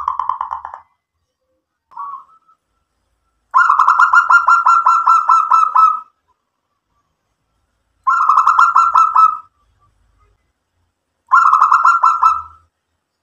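Zebra dove (perkutut) cooing in rapid pulsing phrases: a short note about two seconds in, then three rolling coos of one to two and a half seconds each, separated by pauses of a couple of seconds.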